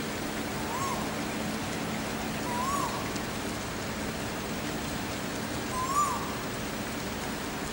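Steady rain-like hiss over a faint low hum. Three short calls that rise and fall in pitch come about a second, three seconds and six seconds in.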